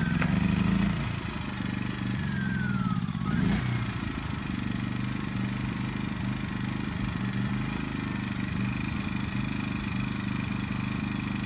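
Generac iQ2000 inverter generator just started, running up briefly and then settling, its pitch falling about two to three seconds in, into a steady eco-mode idle with no load.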